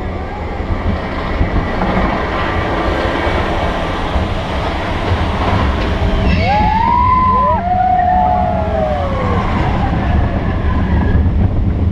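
Expedition Everest steel roller coaster train rolling along its track, a steady low rumble. About six seconds in, two pitched cries rise and then fall away over roughly three seconds.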